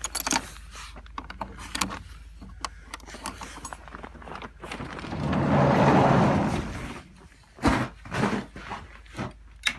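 Footsteps and handling noise in snow: a run of short crunches, clicks and knocks. Midway a louder rushing noise swells for about two seconds and fades, and a couple of sharp thumps follow.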